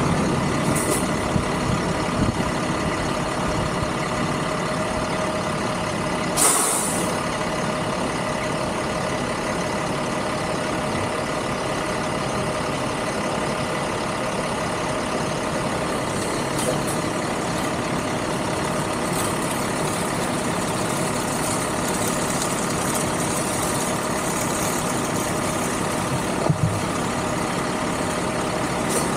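Stopped street traffic with a large dump truck idling alongside, its engine running steadily. There is a brief hiss about six and a half seconds in and a short knock near the end.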